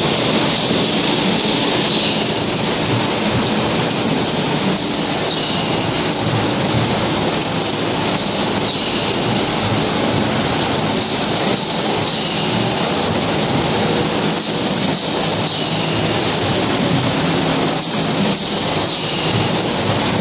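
PS foam lunch box forming, cutting and stacking machine running: a steady, loud mechanical noise with a hiss and faint scattered ticks.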